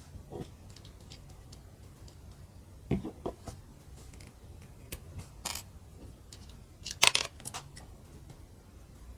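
Small plastic mini building bricks being handled and pressed together: scattered light clicks and taps, with a sharper click about three seconds in and the loudest cluster of clicks about seven seconds in.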